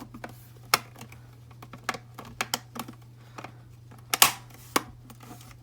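Scattered sharp plastic clicks and knocks from a mechanical keyboard's case and plate being handled and pressed back together. Two louder knocks stand out, one under a second in and one about four seconds in.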